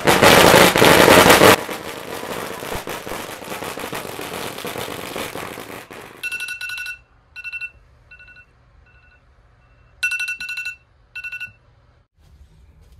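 A string of Tết firecrackers going off: a very loud burst of rapid bangs for about a second and a half, then dense crackling until about six seconds in. After that come scattered short bursts over the next five seconds, each carrying a high, steady ringing tone.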